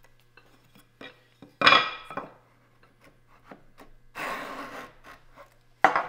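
A small handheld edge-trimming tool shaving the corner of a soft maple board: two scraping strokes, a short loud one about one and a half seconds in and a longer one a little past four seconds, then a sharp knock near the end.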